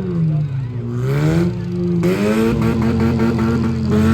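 Demolition derby cars' engines revving: the engine pitch drops and then climbs again in the first second or so, then holds high, with short rattling clatter over it in the second half.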